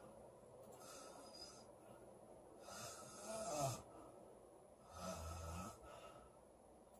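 A girl snoring in her sleep, one breath about every two seconds. A faint breath comes first, then a stronger snore about halfway through that is the loudest, then a lower-pitched snore near the end.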